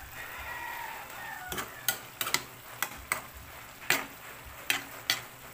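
A metal ladle stirring jackfruit leaves simmering in coconut milk in a metal pot. It knocks and scrapes against the pot about nine times, over the hiss of the simmering pot.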